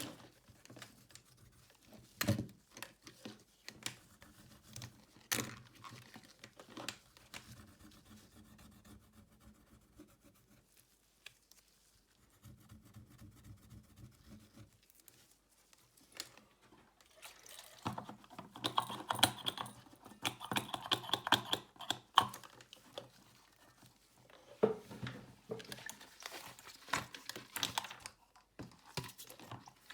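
Close-up handling sounds of a smartphone repair: sharp clicks and taps of small tools and parts on the phone, with a denser stretch of scraping or peeling about two-thirds of the way through.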